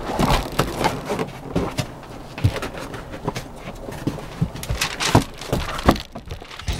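Footsteps on icy, snow-covered pavement: a string of irregular sharp crunches and scrapes that stops about six seconds in.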